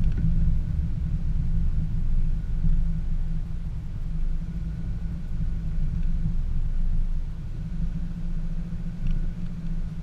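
2014 Subaru Forester 2.5i driving slowly along a rough dirt trail, its engine and tyres making a low, steady drone.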